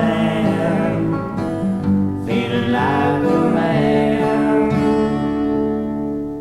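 Acoustic guitar strumming chords at the close of a country-folk song. The last chord rings and fades away near the end.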